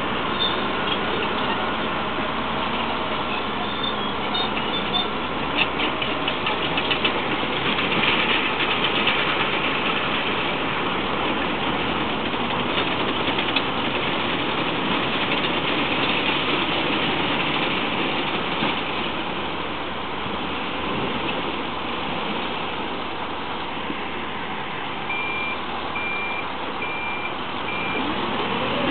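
Engine running steadily, with a run of clicks early and four short high beeps near the end.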